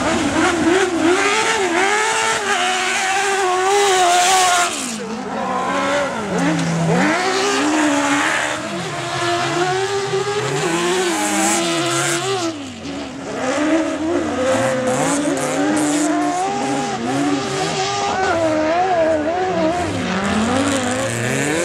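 Several race-car engines revving hard on a dirt autocross track, their pitch climbing and dropping again and again through gear changes and corners, overlapping one another.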